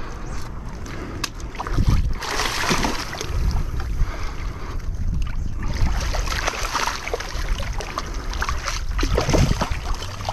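Hooked striped bass splashing in the rocky shallows as it is landed, heard over wind buffeting the microphone.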